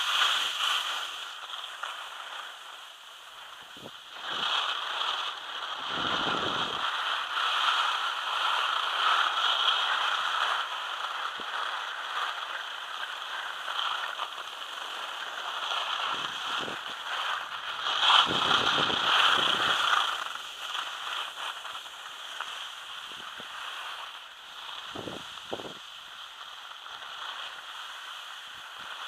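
Skis scraping over packed snow during a downhill run, a continuous hiss that swells and fades, loudest about two-thirds of the way through. Wind buffets the microphone now and then.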